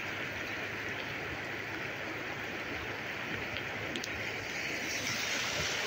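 Muddy floodwater from a flash flood after heavy rain, rushing across open ground with a steady rushing noise.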